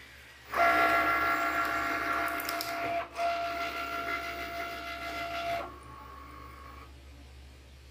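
Cricut Maker cutting machine's motors running with a steady, several-toned whine that starts suddenly, breaks off briefly about three seconds in, and stops after about five seconds, leaving a fainter tone for another second. This is the machine starting its cut after its Go button is pressed.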